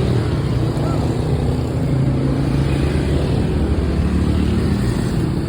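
Steady street traffic, dominated by the low running of motorbike and car engines.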